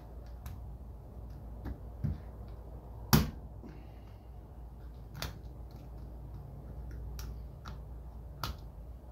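Sharp clicks and cracks from the glued plastic seam of a Bose cube speaker's housing as it is pried apart, the glue giving way bit by bit. There are about seven irregular snaps, the loudest about three seconds in.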